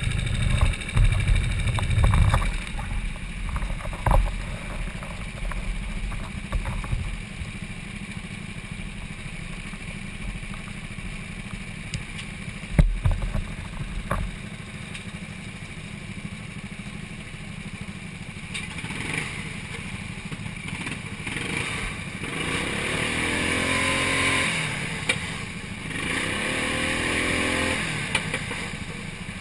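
Knocks and rubbing on a helmet-mounted camera as it is handled, with a sharp thump about 13 seconds in. From about two-thirds of the way through, go-kart engines run close by, their pitch rising and falling as they rev.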